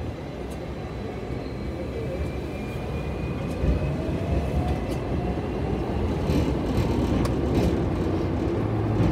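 Hong Kong double-decker electric tram pulling away and gathering speed, heard from its upper deck: the running noise grows louder and a faint motor whine rises in pitch. A few sharp clicks come from about four seconds in.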